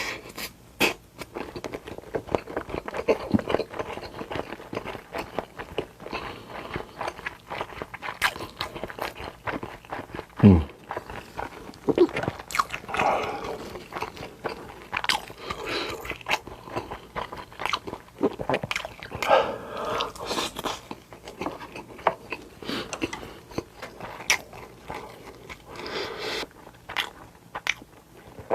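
Eating sounds of a Korean home-style meal: repeated biting, crunching and chewing, with irregular sharp clicks throughout. A brief low sound falling in pitch about ten seconds in is the loudest moment.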